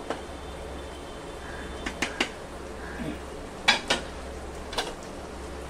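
Cookware clinking and knocking against a frying pan of simmering gravy: about eight short, sharp clicks at uneven intervals, the loudest just past the middle, over a steady low hum.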